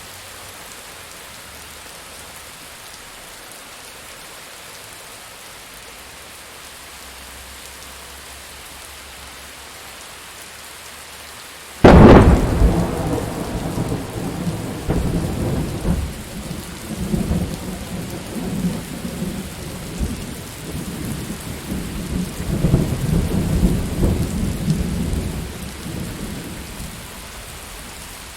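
Steady rain falling; about twelve seconds in, a sudden loud clap of thunder breaks out and rumbles on, swelling and fading for some fifteen seconds before only the rain is left.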